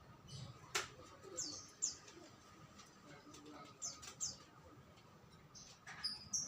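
Small bird chirping: short, high, falling chirps in two pairs a couple of seconds apart, with a sharp click about a second in and more chirps starting near the end.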